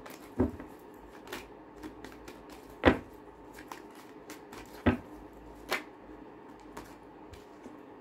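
A tarot deck being shuffled by hand: scattered soft card flicks and slaps, with a few louder slaps standing out.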